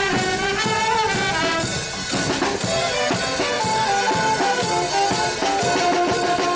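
Marching peña brass band playing a tune: trumpets, trombones, saxophones and sousaphone over bass drum, snare and cymbals, with a steady beat about two strokes a second.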